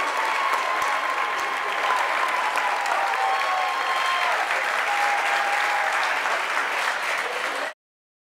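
Audience applauding steadily, with a few voices calling out over the clapping; the sound cuts off abruptly near the end.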